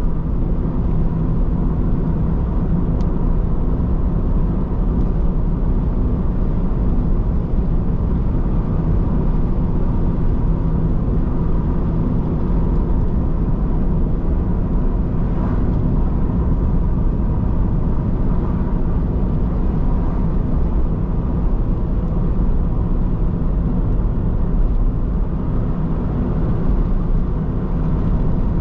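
A car driving along a road: steady engine and tyre noise, mostly low in pitch and even throughout.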